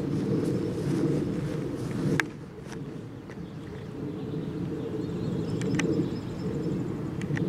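Outdoor field recording of a handheld camera on the move, with steady low rustle and handling noise. A single sharp click comes about two seconds in, and faint high bird calls and light ticks come near the end.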